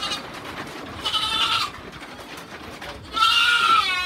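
Goats bleating, three calls: a short one at the start, one about a second in, and a louder, longer one near the end that drops in pitch as it ends.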